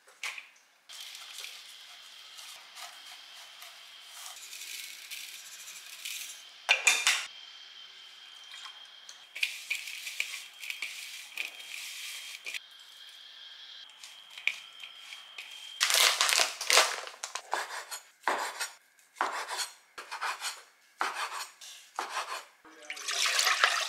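Ceramic-coated kitchen knife chopping down through sundae onto a wooden cutting board, a sharp knock about once a second over the last third. Before that, softer rustling of hands tossing chopped garlic chives in a glass bowl, with a few scattered knocks.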